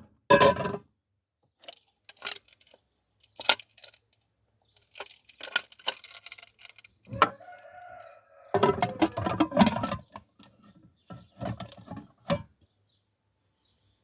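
Metal clinks, taps and knocks from a pressure cooker's pot and lid being handled and fitted into line, in scattered clusters with a short squeak of metal rubbing on metal about halfway through.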